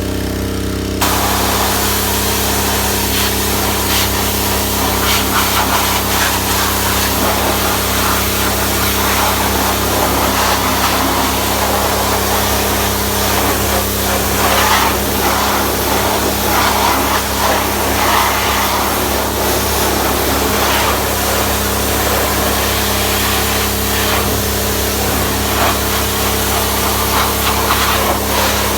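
Small-engine pressure washer running steadily, with the high-pressure water jet spraying from about a second in onward.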